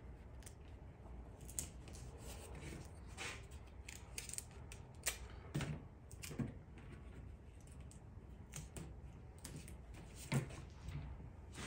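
Scattered light clicks and rustles of metal eyeglass frames being handled and taped together on a fiberboard board, with a few short, sharper scrapes.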